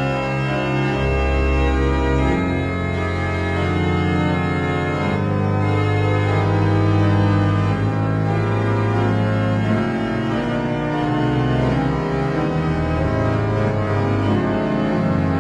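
Organ-like music playing long held chords over a deep bass line that moves to a new note every few seconds.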